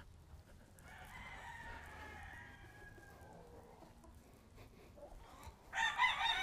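Gamecocks crowing: one faint, long crow from a distant bird about a second in, then a louder, closer crow near the end.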